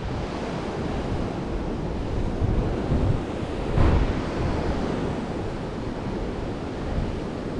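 Wind rushing over the microphone above the sound of ocean surf breaking against the cliff below, with a brief louder rush about four seconds in.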